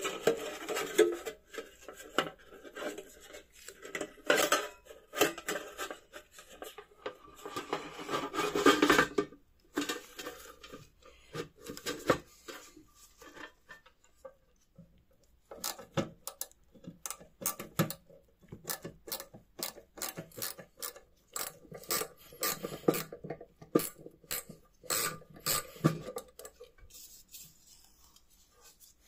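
Metal parts of an old slide projector's lamp housing being handled and fitted together by hand: scraping and rubbing for about the first ten seconds, then after a short pause a long run of sharp clicks and light metal knocks.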